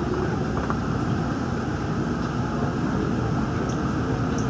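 Steady running noise of a Daegu Metro Line 3 straddle-type monorail car in motion, a low even rumble of its rubber tyres on the guideway heard inside the car.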